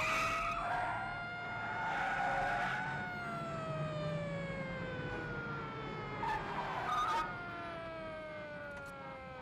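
Police car siren wailing: its pitch climbs and holds for about three seconds, then slowly winds down. Tyres squeal at the start, about two seconds in, and again around six to seven seconds in.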